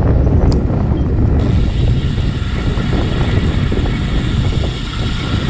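Steady, loud wind rumble on a bicycle-mounted camera's microphone while riding a road bike at speed, with a single brief click about half a second in.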